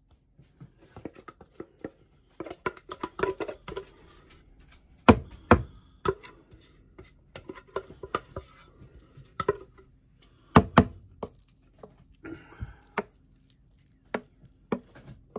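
A utensil scooping and spreading mashed potato over a filling in baking dishes: irregular clicks and knocks against the dish with some soft scraping. A few louder knocks come about five seconds in and again near eleven seconds.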